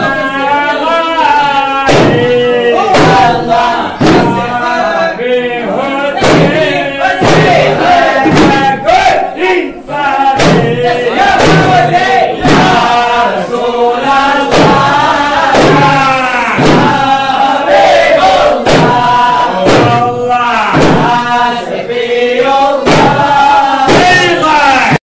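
A group of men chanting loudly together in a call-like devotional song, over hand-beaten frame drums (daff) struck in a steady beat.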